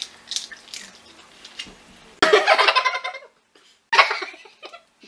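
Faint clicking and cracking of crab shells being picked apart by hand, then a woman bursts into loud laughter about two seconds in and laughs again briefly near the end.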